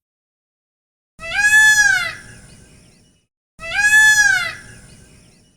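Peacock giving two loud calls, each about a second long, rising then falling in pitch and trailing off in an echo.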